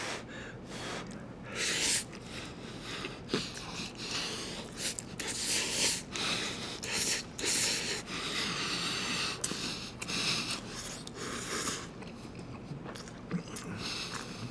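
A person slurping and chewing Chapagetti black-bean instant noodles: a run of irregular wet slurps, smacks and sniffs through the nose.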